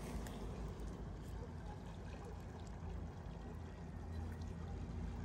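A steady low outdoor rumble with a few faint light ticks as a knife blade scrapes chopped garlic onto a clay plate of cheese.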